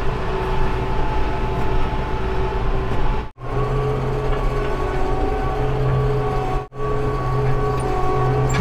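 Construction machine's engine running steadily with a whine, in three short clips cut together abruptly.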